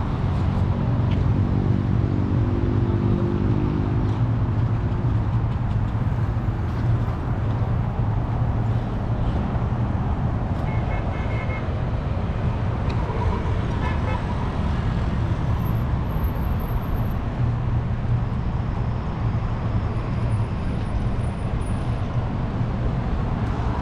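Street traffic: a steady rumble of passing vehicles, with one engine's drone standing out for the first few seconds and a few short high beeps about eleven and fourteen seconds in.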